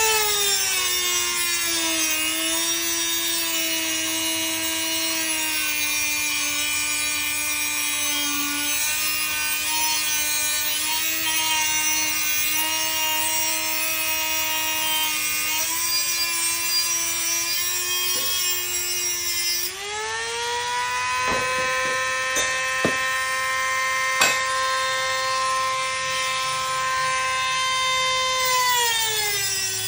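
Dremel rotary tool with a cutoff wheel cutting through a steel wire rack. It runs as a steady high whine that spins up at the start and wavers under load, then jumps higher in pitch about two-thirds through, with a few sharp clicks.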